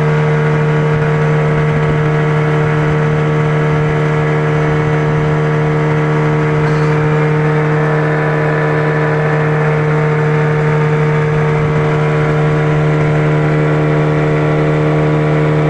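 A small wooden motorboat's engine running steadily under way, a constant drone with a strong low hum and no change in speed.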